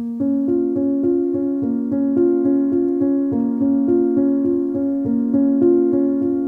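Background music: a keyboard melody of short repeated notes with a steady pulse, about three notes a second.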